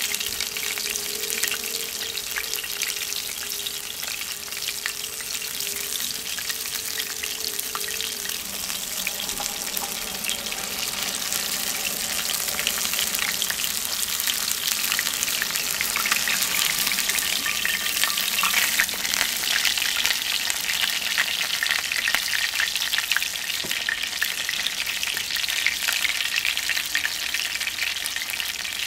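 Panko-breaded haddock fillet sizzling and crackling as it shallow-fries in hot oil in a cast iron skillet. The frying grows louder about halfway through, after the fillet is turned over.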